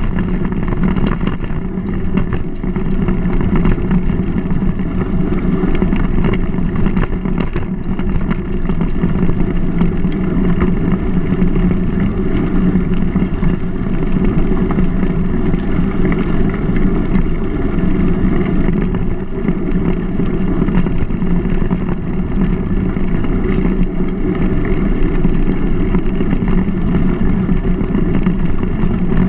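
Mountain bike rolling along a dirt and gravel towpath, heard through a GoPro: steady tyre and trail noise with wind on the microphone, and frequent small rattles and clicks.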